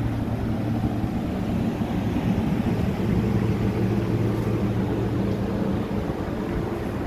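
Air-conditioning outdoor units running close by, a steady low machine hum from their compressors and fans.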